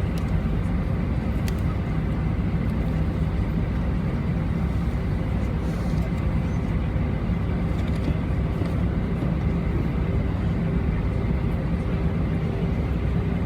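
Steady drone of an Airbus A320-family jet's engines and airflow heard inside the passenger cabin, with faint constant tones over a deep, even rumble.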